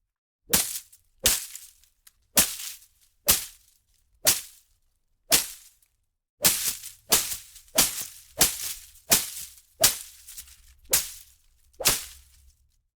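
Leafy foliage being whipped and slashed: a series of sharp swishing hits on leaves and undergrowth, each with a short rustling tail. They come about one a second at first, then in a quicker run of about two to three a second from about halfway in.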